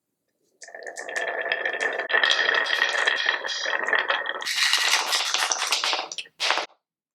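Marbles rolling and clattering down a wooden marble run, a dense rattle of many small clicks with a faint ringing tone. It stops abruptly about six seconds in, followed by one short last clatter.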